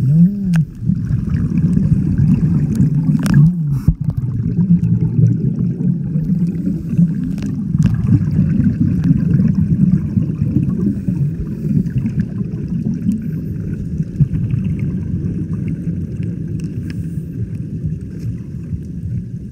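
Muffled, low-pitched water noise from snorkeling in the water, with gurgles and a few sharp knocks, the loudest near the start.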